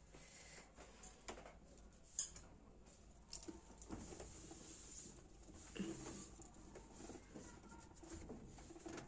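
Faint, scattered taps and clicks of objects being handled, with one sharp click about two seconds in.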